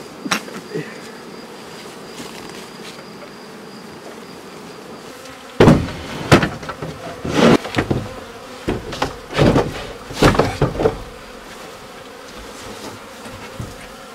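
Honeybees buzzing steadily. From about five and a half seconds in comes a run of loud wooden knocks and clatter as wooden hive supers with empty frames are lifted and set down on one another.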